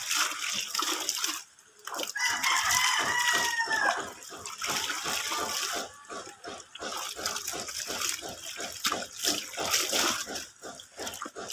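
Clothes being rinsed by hand in a basin of water, splashing and sloshing in a quick, even rhythm of about four strokes a second. A rooster crows once, about two seconds in, for around two seconds.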